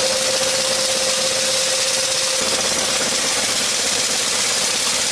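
Single-wire automatic chain link fence machine running as it weaves mesh: a steady mechanical noise with a constant mid-pitched tone over an even hiss.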